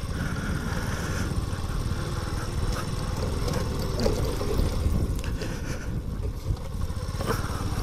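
Motorcycle engine running steadily while the bike is ridden along a dirt track, with a dense low rumble throughout.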